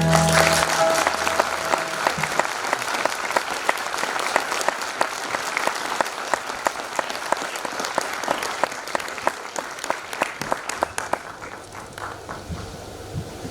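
Audience applause as the last sustained note of the song dies away. The clapping is dense at first, then thins to scattered claps and fades out near the end.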